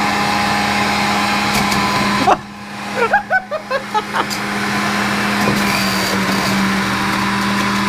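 Electric centrifugal juicer's motor running with a steady whir; about two seconds in it cuts out sharply, then spins back up over a couple of seconds and runs steadily as fruit is pushed down the feed tube.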